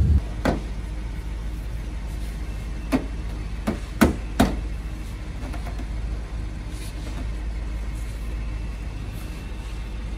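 Headlight assembly being worked into its mounting on a Toyota Land Cruiser FZJ80 front end: about five sharp clicks and knocks in the first half, the loudest around 4 seconds in, over a steady low hum.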